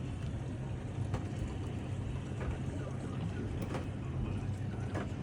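A boat's engine running steadily with a low, even hum, with a few faint clicks and knocks.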